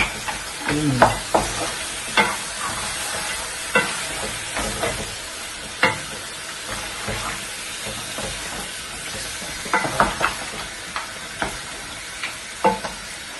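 Cow foot and cowhead meat frying in a metal pot, a steady sizzle, while a wooden spoon stirs it, with scattered knocks and scrapes of the spoon against the pot.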